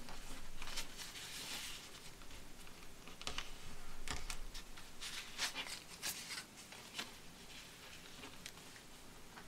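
Sheet of paper being folded and creased by hand on a cutting mat: rustling with a run of short, crisp ticks as the folds are pressed down.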